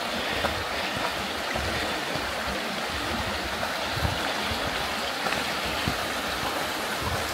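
Stream water rushing steadily, with a few soft low thumps.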